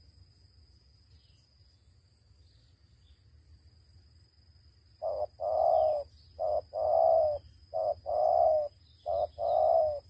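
Spotted dove cooing: four quick short-then-long coo couplets, starting about halfway in and running close together.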